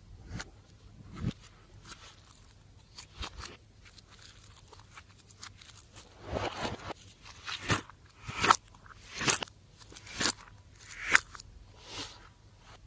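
Slime being pressed and worked by hand, giving small clicks and then sharp crunchy pops and crackles about once a second through the second half.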